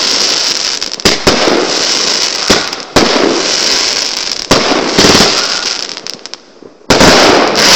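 Aerial fireworks bursting: a string of about seven sharp bangs with crackling and hissing between them, easing off briefly before one more bang near the end.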